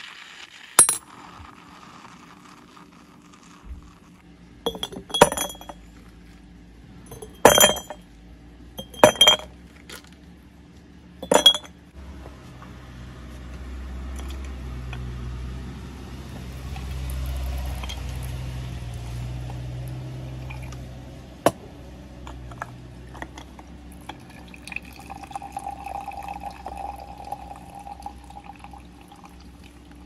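Glass clinking five times with short, bright rings, then liquid being poured for several seconds, swelling and fading.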